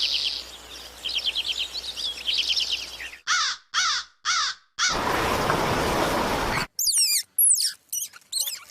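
A string of short, separate bird-call clips: rapid high trills for about three seconds, then three loud falling calls, a stretch of steady hiss-like noise, and several high falling whistles near the end.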